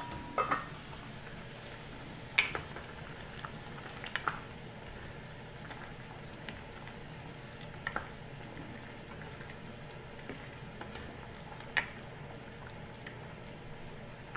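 Meat broth for sinigang bubbling at a boil in a stainless steel pot, stirred with a ladle that knocks sharply against the pot several times. The meat is being boiled to make it tender.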